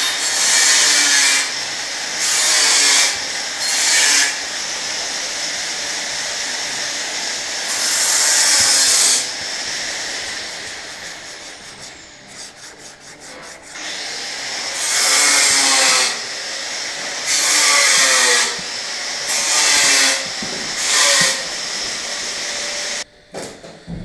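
150-grit sandpaper on a hand sanding block rubbing back and forth over the filler and paint of a plastic car bumper. It rasps in uneven runs of strokes, each run about a second long, with a quieter stretch around the middle.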